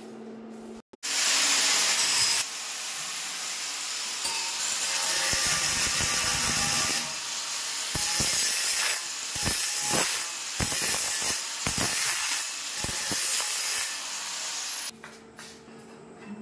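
Handheld angle grinder with a cutting disc cutting through a stainless steel handrail tube: harsh grinding noise under a steady high whine, starting abruptly about a second in, the load rising and falling as the disc bites in the second half, and stopping shortly before the end.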